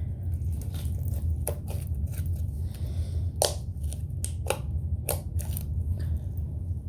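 Slime being kneaded and stretched by hand after body wash has been mixed in, giving irregular sticky clicks and pops.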